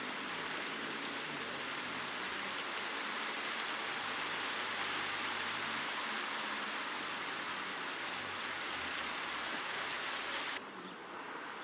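Steady rain falling, an even hiss of drops on surfaces; it drops off abruptly near the end.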